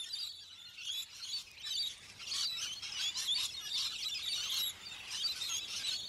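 Birds chirping and twittering: many short, high, overlapping calls that carry on without a break.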